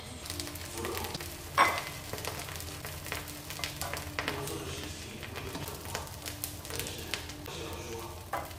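Butter and salted chili paste sauce sizzling and crackling in a wok, with a spatula scraping as fried chicken wings are lifted out onto a plate. One sharp knock comes about a second and a half in.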